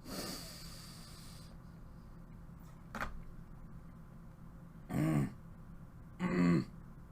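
A man's short closed-mouth "mmm" sounds, twice in the second half, as he reacts to a salty, weird taste while eating. A breathy rush of noise comes at the start and a single click about three seconds in.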